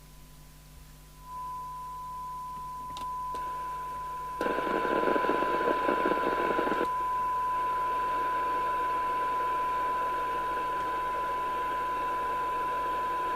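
Midland 2001 FM CB radio's receiver audio during a SINAD sensitivity test: a steady test tone from the signal generator comes through about a second in. Receiver hiss rises under it, loudest from about four to seven seconds, then holds steady as the signal is set near the 12 dB SINAD point.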